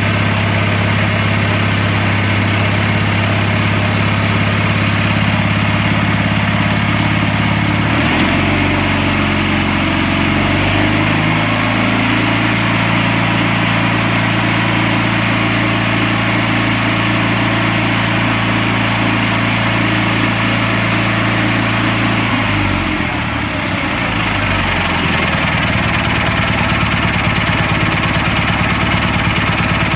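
Small engine running steadily. Its speed shifts about eight seconds in, then dips and wavers about three-quarters of the way through before settling again.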